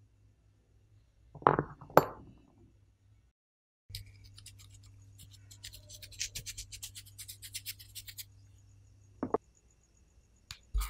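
Ground pepper sprinkled by hand over raw pork cutlets on a wooden cutting board: a quick patter of fine ticks from the falling grains. Before it come two sharp clinks, and near the end there is a single tap.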